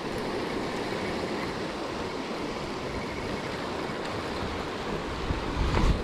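Ocean surf washing and breaking over the jetty's rocks, a steady rushing wash, with a low rumble building near the end.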